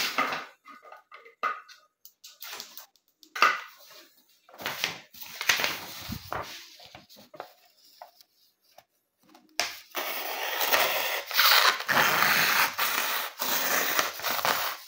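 A sheet of printer paper rustles and crinkles as it is handled. Then, from about ten seconds in, a sharp kitchen knife slices through the paper with a continuous papery hiss, as a test of the blade's sharpness.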